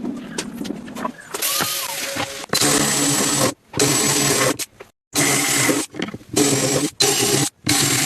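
Power woodworking tool running in short runs of about half a second to a second, each starting and stopping abruptly, with a steady motor hum under the cutting noise.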